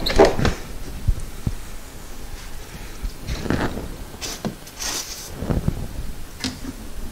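Handling sounds of work on rubber coolant hoses and their spring clamps: a couple of rubbing strokes at the start, then scattered soft knocks, rustles and clinks.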